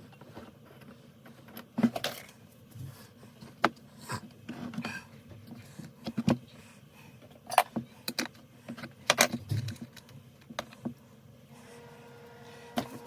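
Tools and small metal chainsaw parts clicking and knocking in scattered single strikes as the saw is taken apart. A faint steady hum starts near the end.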